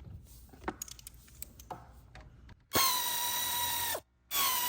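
Cordless drill driving screws: two loud runs of about a second each with a steady high whine, a short pause between them, after some light clicks of parts being handled.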